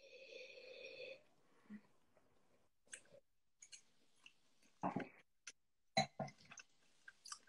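Faint mouth sounds of cider tasting: a drawn-in, slightly whistly sip from a glass lasting about a second, then scattered lip smacks and small mouth clicks as the drink is tasted.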